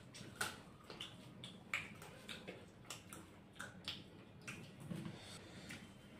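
Eating by hand: a scatter of faint clicks and smacks from chewing chicken and rice and from fingers working the food on the plates.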